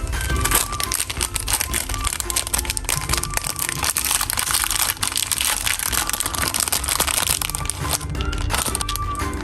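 Dense, irregular crinkling and crackling handling sounds over background music with a melody and bass line.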